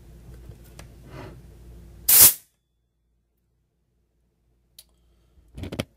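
Short, loud hiss of high-pressure air as the bleed valve on the PCP fill assembly vents the charged fill hose, about two seconds in and over within half a second. The line is being depressurised from about 2000 PSI so the fill hose can be disconnected.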